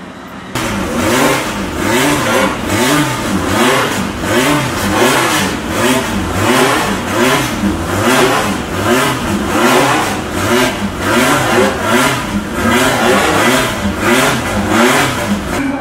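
A car engine revved over and over, its pitch rising and falling in quick repeated blips more than once a second; it cuts in suddenly about half a second in.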